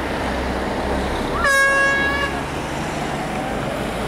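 A horn toots once, a single short note of under a second about a second and a half in, over a steady low rumble of wind.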